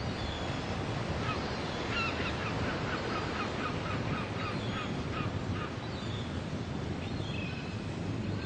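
A bird calling in a quick run of short, nasal notes, about four a second, for several seconds, over a steady wash of surf and wind noise.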